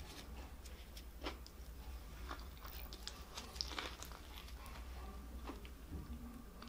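McDonald's chicken roll being bitten into and chewed, with crinkling of its paper sleeve: scattered small crunching clicks and crackles.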